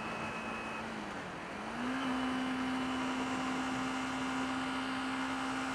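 Kawasaki Ninja 250R's parallel-twin engine running on the move. Its note dips briefly about a second in, then rises and holds steady at slightly higher revs.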